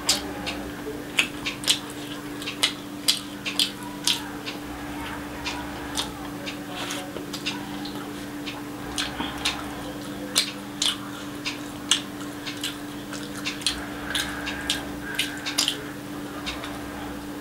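Close-miked eating of egg curry and fried rice by hand: many short, sharp, wet mouth clicks and smacks of chewing, irregularly spaced, over a steady low hum.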